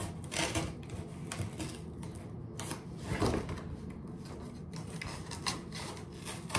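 Scissors cutting through corrugated cardboard: a run of irregular snips and crunches.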